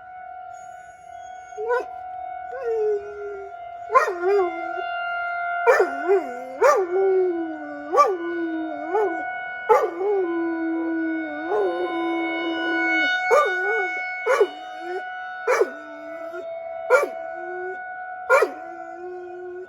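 Labrador retriever howling over and over, about a dozen short howls that each break in sharply high and slide down to a held lower note. Under them an outdoor tornado warning siren holds one steady wailing tone.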